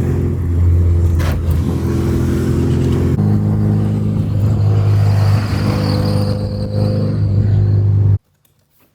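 A vehicle engine drones steadily while driving. Its pitch steps up about three seconds in, and the sound cuts off suddenly shortly before the end.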